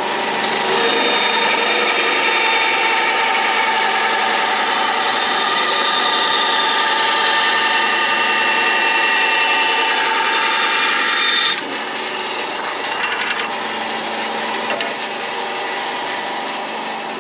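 EzyLif VBS8 350 W 8-inch band saw cutting through a small block of wood: a loud rasping cut with whining tones over it. About two-thirds of the way through, the blade finishes the cut and the sound drops suddenly to the saw running on with no load.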